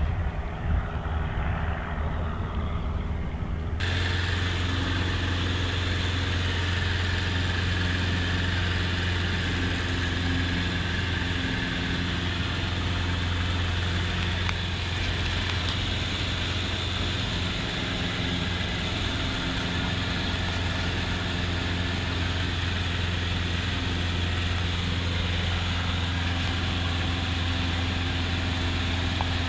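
Single-engine Cub bush plane's engine and propeller: a steady low drone with a hiss of rushing air, heard from inside the cabin in flight. For the first few seconds the plane is heard from outside as it comes in low, fainter and duller, before the sound switches abruptly to the loud cabin drone.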